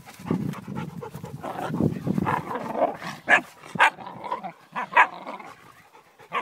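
German shepherd and puppy at play: panting and scuffling for the first few seconds, then three short, sharp barks in the second half.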